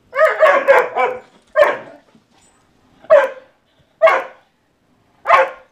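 A dog barking in play over a toy: a quick run of four or five barks in the first second, then single barks about once a second.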